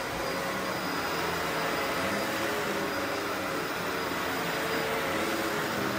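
Bagless upright vacuum cleaner running steadily as it is pushed back and forth over carpet.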